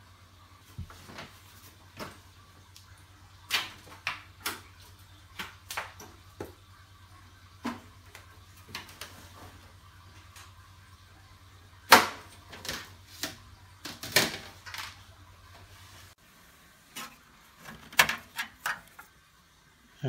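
Scattered clicks and knocks from hands handling a desktop PC tower and its cables, the loudest a sharp knock about twelve seconds in. A low steady hum underneath stops about sixteen seconds in.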